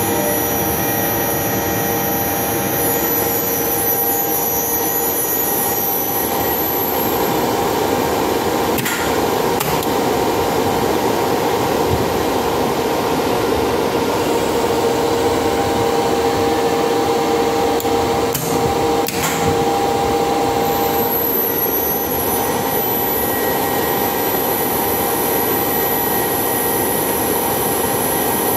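Steady whirring hum of elevator machine-room equipment running, with a few steady tones and a high thin whine that fades out and returns about two-thirds of the way in. A few short clicks come around a third of the way in and again about two-thirds in.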